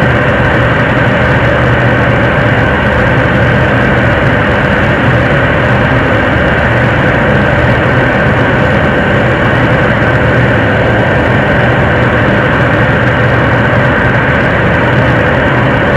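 7-ton-class liquid-propellant rocket engine (Nuri third-stage engine) in a long test firing on a high-altitude simulation stand: a loud, steady roar of exhaust that holds unchanged, the sign of stable combustion.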